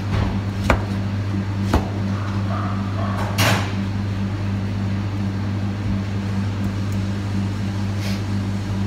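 Two sharp knocks about a second apart, then a brief scraping rustle about three and a half seconds in, like cupboard doors and items being handled. All of it sits over a steady low machinery hum.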